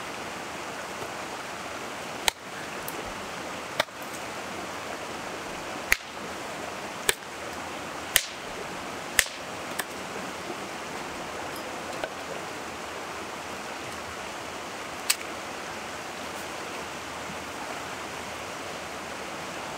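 A river rushing steadily, with sharp pops from the wood campfire at irregular intervals, about seven in all and mostly in the first half.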